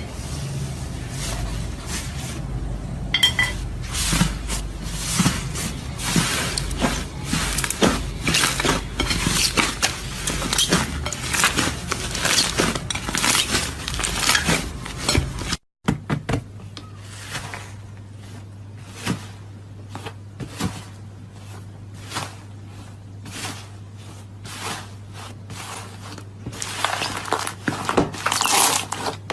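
Slime being squeezed and worked by hand, giving a dense run of irregular crackling clicks and pops. Near the middle there is a cut, after which the clicks are sparser over a steady low hum.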